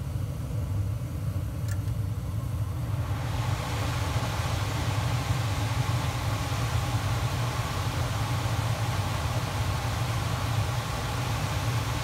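Trane 80% gas furnace running with its burners lit: a steady low rumble, a faint click about two seconds in, then about three seconds in the blower comes on and a rush of moving air builds up and holds.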